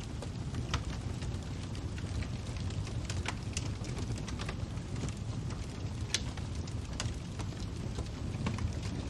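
Fire crackling: a steady low rumble with irregular sharp pops and snaps scattered through it.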